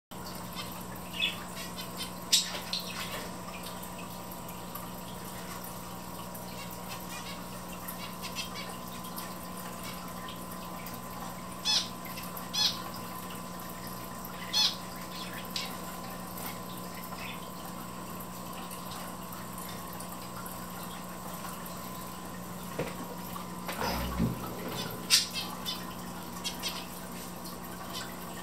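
Zebra finches giving short, high calls in small scattered groups, with several seconds of quiet between, over a steady faint hum.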